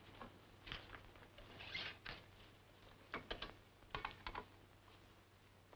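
Faint scattered clicks and rustles of phonograph records being handled and pulled from a rack, in small clusters about a second apart.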